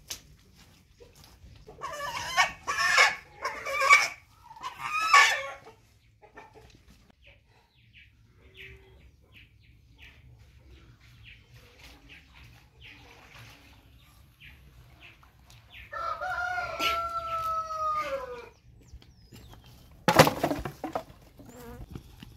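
Chicken calling loudly in several harsh bursts as it is caught from under a coop, then a rooster crowing once, a long call held level and falling at the end. A single sharp knock near the end is the loudest moment.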